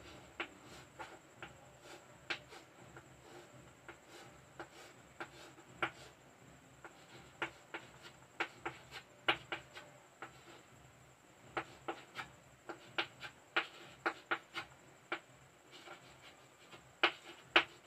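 Writing by hand: irregular short scratchy strokes and taps, some quick clusters, with pauses between them.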